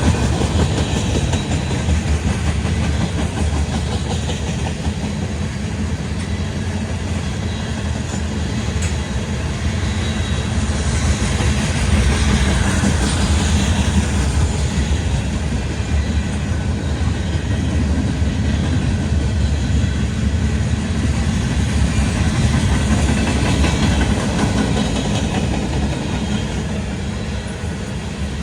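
Freight cars of a manifest train rolling past on the track: steady, loud noise of steel wheels on rail, swelling slightly partway through.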